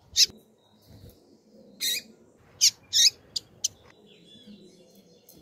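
Female double-collared seedeater (coleiro) calling: six short, sharp, high chirps, one about a fifth of a second in, then five more between about two and four seconds in, the last four close together. A faint fast trill sounds in the background near the end.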